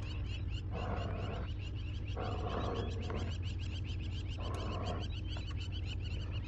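Rapid, steady chirping, many short chirps a second, over a low steady hum and patches of rushing noise.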